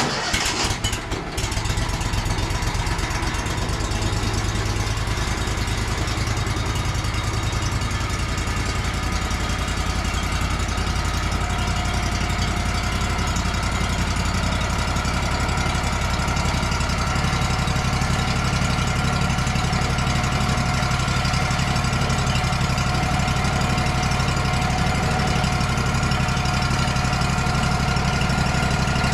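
Engine of a Wood-Mizer portable sawmill running steadily. It comes in suddenly, runs unevenly for the first second or so, then settles into an even run.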